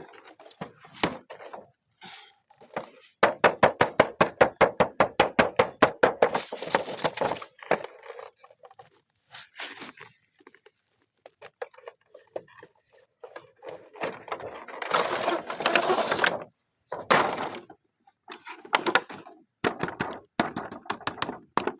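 Plastic toys and packaging being handled: a fast run of sharp clicks, about ten a second, a few seconds in, then rustling bursts and knocks.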